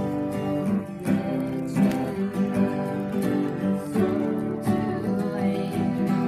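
Acoustic guitars strumming chords in a steady rhythm, with no singing.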